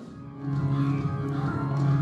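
Music: a low sustained note comes in about half a second in and holds, noticeably louder than what came before.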